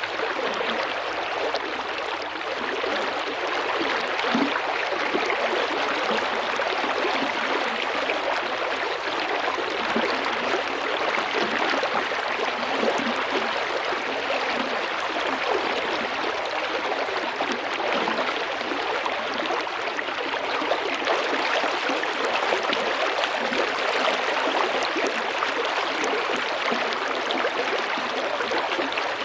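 Small river flowing steadily, its water babbling and gurgling over stones.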